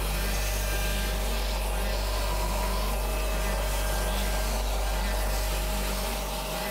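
A CNC router spindle runs steadily with a low hum and steady whine while it mills a pocket in a wooden board. A vacuum nozzle sucks the sawdust out of the cut, adding an even rushing hiss.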